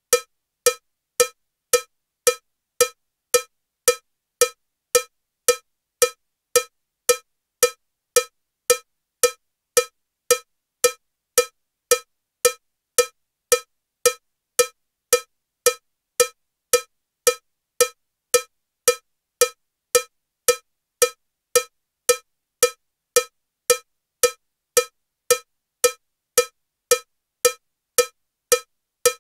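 Metronome at 112 beats per minute with a cowbell sound: short, ringing cowbell strikes, evenly spaced at just under two a second.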